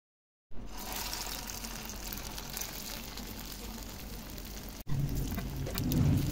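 Chicken and lentil shami kebab patties sizzling in shallow oil on a flat griddle: a steady crackling hiss that starts about half a second in. After a brief break near five seconds it goes on louder, with some low rumbling.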